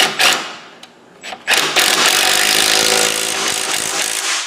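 Cordless DeWalt impact wrench tightening a nut onto a bolt: two short blips at the start, then one steady run of about three seconds that begins about a second and a half in and stops just before the end.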